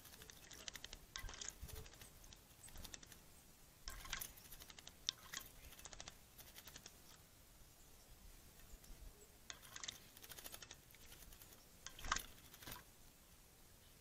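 A Eurasian blackbird bathing in a shallow bird-bath dish: faint, short flurries of splashing as it flicks its wings in the water, several times, the loudest near the end.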